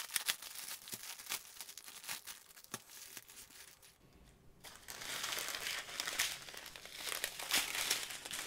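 Clear plastic packaging crinkling as a sleeve of diamond-painting drill bags is pulled open and the strips of small plastic bags are handled. At first there are scattered crackles, then a short lull a little past the middle, then denser, steady crinkling.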